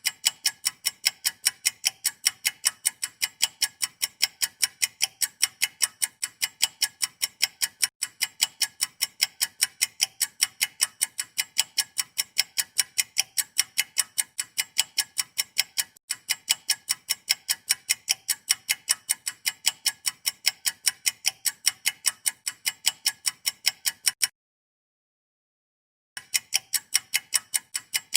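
Clock-like ticking, rapid and perfectly even at about four ticks a second, stopping dead for about two seconds near the end and then resuming.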